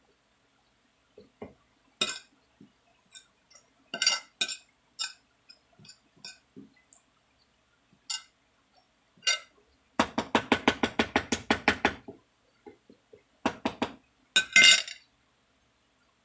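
Metal spoon clinking and scraping against a ceramic plate while lumpia filling is scooped. There are scattered single clicks, then a rapid run of about ten taps a second for two seconds about two-thirds of the way in, and a last loud cluster of clinks near the end.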